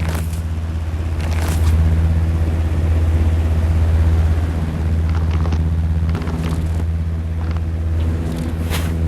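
Old film projector sound effect: a steady low mechanical hum with a fast, even clatter, broken by a few short crackles, once early and once near the end.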